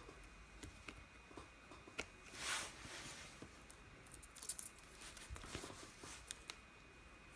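Faint small clicks and taps scattered through, with one brief swish about two and a half seconds in and a quick run of clicks a little past the middle, over a faint steady high whine.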